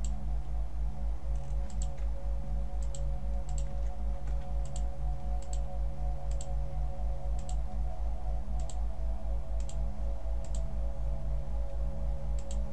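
Computer mouse clicking about once a second, a dozen or so sharp clicks while wires are placed in a circuit-drawing program, over a steady low pulsing hum.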